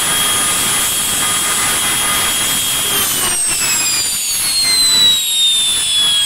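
Blackburn Buccaneer's number two jet engine being blown over, turned by its starter without lighting, with a steady high whine. About three seconds in the whine starts to fall steadily in pitch as the engine winds down.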